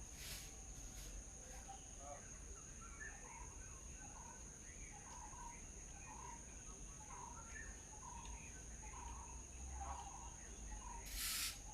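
A bird giving a short call over and over, one or two notes a second, over a steady high-pitched insect drone. A brief hiss near the end.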